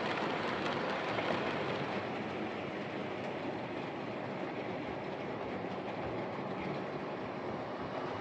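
Lima Class 31 OO gauge model diesel locomotive running on the layout track: a steady motor whir with the rattle of its wheels on the rails. It runs smoothly, a sign that its pickups are making good contact.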